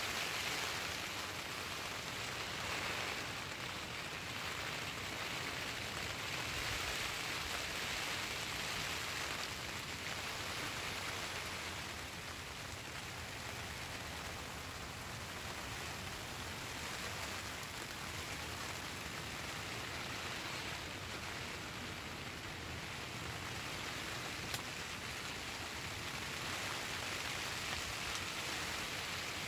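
Steady rain falling, an even hiss with a single faint tick late on.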